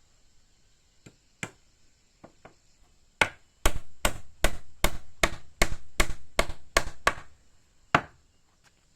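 Repeated chopping strokes on wood: a few light taps, then a quick run of about a dozen hard chops at roughly two and a half a second, and one last chop near the end.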